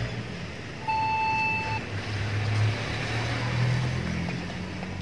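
A steady low engine-like hum, with a single beep lasting just under a second about a second in.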